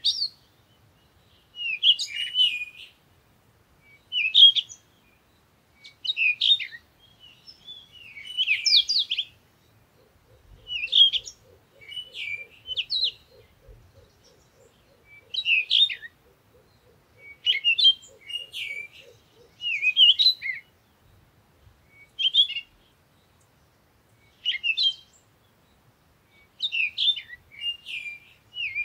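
A small songbird chirping in short, high phrases, one about every two seconds with quiet gaps between.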